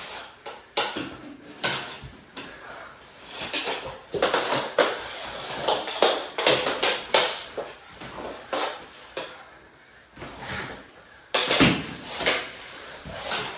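Plastic mini hockey sticks clacking against each other and knocking on a laminate floor, with knees and bodies scuffing and sliding along the floor as two players scramble for the ball. A burst of louder knocks comes near the end.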